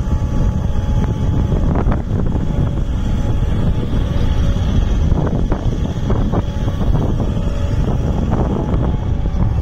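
Kato HD514MR-7 excavator's diesel engine running steadily under hydraulic load while the boom and arm are worked and the upper structure swings, with a few short knocks along the way.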